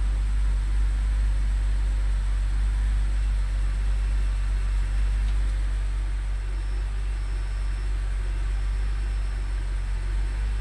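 BMW 328xi's inline-six engine running with a steady low drone. The owner says it has been running rough since he replaced the valve cover gasket.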